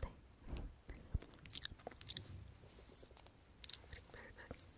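Close-miked ASMR mouth sounds: faint, irregular wet clicks and lip smacks, clustered about a second and a half in and again near four seconds.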